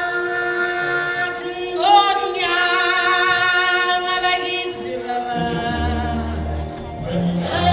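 A choir singing long, held notes with vibrato, with deeper voices or bass coming in about five seconds in.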